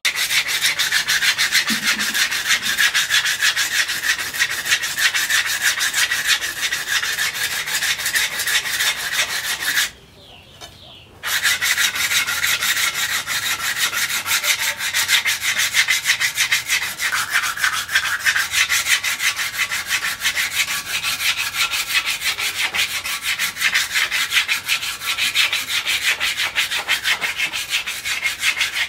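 Wooden knife handle being sanded by hand, sandpaper rubbed rapidly back and forth along it in quick, even strokes. It stops for about a second around ten seconds in, then carries on.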